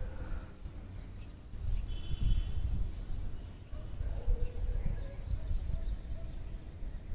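Small birds chirping: a few short high calls about a second in, a brief trill around two seconds, and a run of quick chirps between four and six seconds. Under them is a steady low rumble of wind on the microphone.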